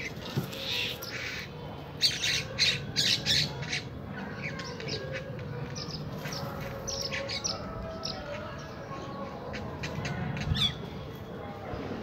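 House crows cawing: a quick run of about five loud, harsh caws about two seconds in, then scattered fainter calls.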